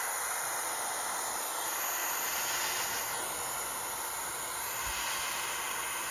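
Pencil torch flame hissing steadily while it heats a fluxed brass joint for soldering.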